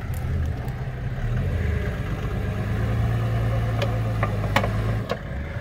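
Off-road 4x4's engine pulling steadily under load, easing off about five seconds in, with a few sharp knocks near the end.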